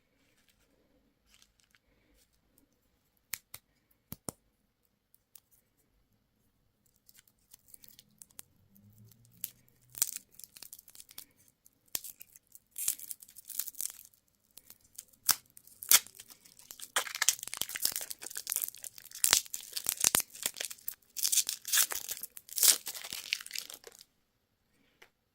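Candy wrapper being torn open and crinkled by hand. A few sharp clicks come first, then crackling that grows denser and louder and stops suddenly near the end.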